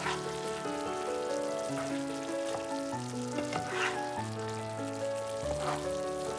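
Chicken wings and vegetables sizzling in a frying pan, with a spatula stirring and scraping a few times, under background music of held notes that change every half second or so.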